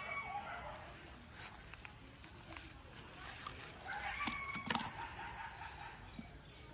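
Outdoor rural ambience: an insect chirping in a steady rhythm, about three short high chirps every two seconds, with a bird calling twice, at the start and again about four seconds in. A single sharp click sounds near five seconds.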